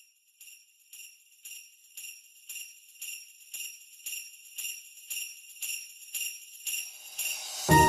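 Sleigh bells shaken in a steady rhythm, about two shakes a second, growing louder as the intro of a Christmas music track; near the end the rest of the band comes in with bass and sustained tones.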